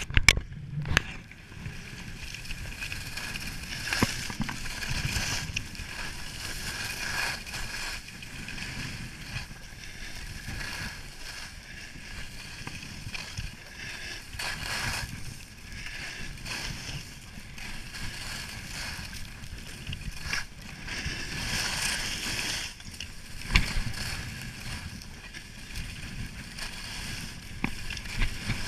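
Skis sliding and carving on groomed snow: a steady scraping hiss that swells and fades with the turns, with a few sharp knocks.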